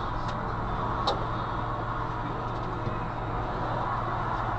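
Steady low vehicle hum with road and traffic noise, and two faint clicks, about a third of a second and about a second in.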